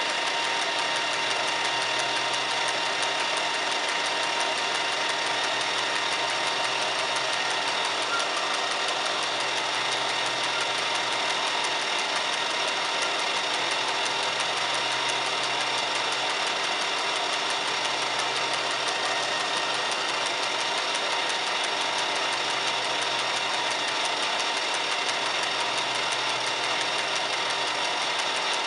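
Metal lathe running steadily with a large faceplate spinning, giving a continuous hum with several steady tones, while a facing cut is taken on the side flange of a connecting rod's big end.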